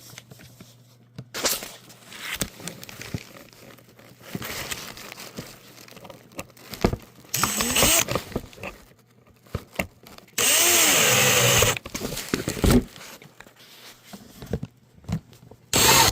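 Cordless drill driving Phillips screws into a replacement suitcase wheel housing in several short runs, each speeding up and winding down. The longest and loudest run lasts about a second and a half, about two-thirds of the way through. Quieter knocks and rattles of handling come between the runs.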